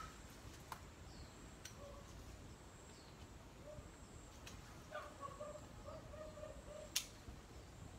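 Faint outdoor ambience with short bird calls, a run of them about five seconds in. A few sharp clicks come from handling leafy branches, the loudest near the end.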